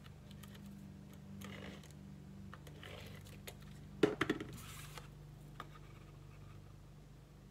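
Tape runner rolled across cardstock in a couple of short scratchy strokes, then a brief clatter and paper rustle about four seconds in as the card pieces are handled and the tool set down, over a low steady hum.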